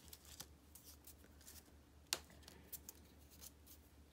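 Faint taps and rustles of small cardstock pieces being handled and pressed down on a work table, with one sharper click about two seconds in.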